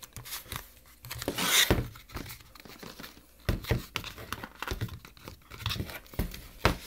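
Cardboard sleeve being worked off a tablet box: irregular scraping and rubbing of paperboard with scattered clicks and knocks as the box is handled. The longest, loudest scrape comes about a second and a half in. The sleeve is a tight fit.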